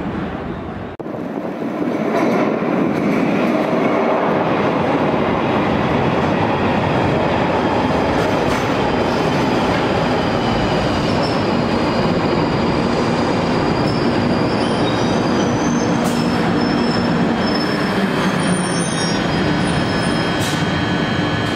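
London Underground Northern Line 1995 Stock train running into the platform and slowing to a stop, a loud steady rush of wheels and running gear. Thin high squeals from the wheels and brakes join in over the last several seconds as it slows.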